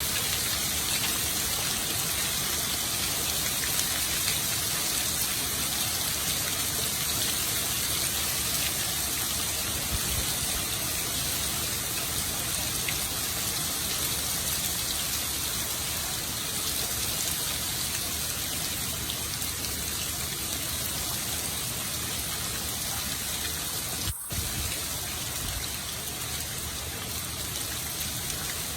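Hard rain falling steadily: a dense, even hiss, brightest in the high range. There is a split-second break in the sound about four-fifths of the way through.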